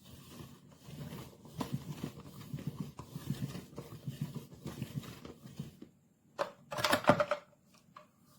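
A hand-twisted plastic meat shredder turning, its blades grinding through a ribeye steak with a rapid run of low clicks and crunches for about five seconds. A few louder knocks follow near the end.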